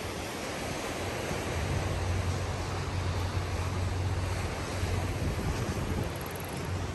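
A steady rush of waves on the shore mixed with wind, with a low rumble of wind buffeting the microphone through most of it.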